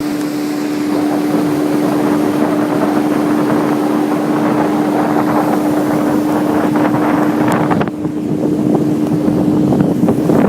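Motorboat engine running at a steady pitch over a dense rushing noise. The rush thins briefly about eight seconds in.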